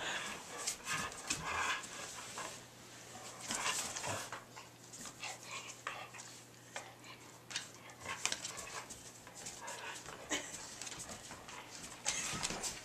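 Tibetan Mastiffs panting as they tug on a rope toy, with irregular short scuffling sounds from the struggle.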